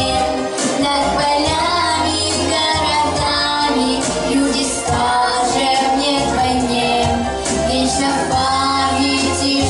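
A young girl singing a song solo over a musical accompaniment with a steady bass line.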